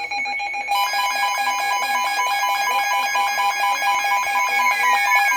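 Electronic emergency alert tones: a steady tone is joined about a second in by rapid pulsing beeps at several pitches at once. Near the end two falling tones slide down over the beeping.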